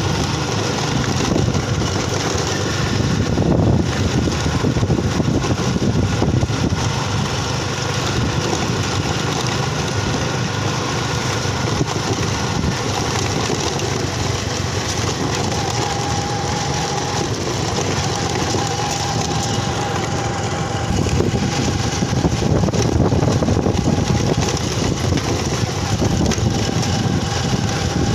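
Motorcycle engine running steadily while riding at an even speed over an unpaved road, with road noise.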